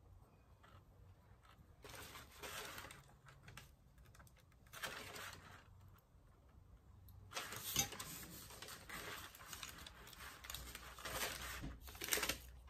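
Light rustling and small clicks of hands handling candies on a gingerbread house. There are short bursts about two and five seconds in, then a longer stretch from about seven to twelve seconds in.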